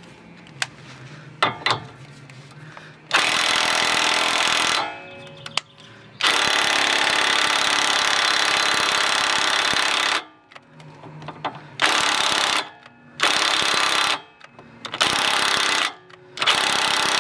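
Impact wrench hammering on a rust-seized suspension arm bolt, in repeated bursts: a short one, then a long one of about four seconds, then four short ones. The bolt is barely turning; the impact is only moving it around.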